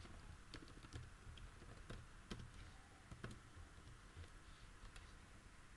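Faint computer keyboard typing: scattered single keystrokes at an irregular pace.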